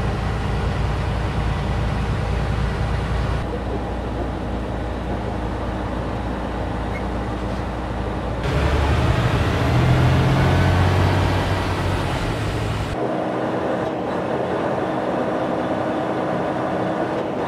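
Heavy truck's engine and road noise, a steady low drone. It is laid down in edited segments whose tone changes abruptly about three times.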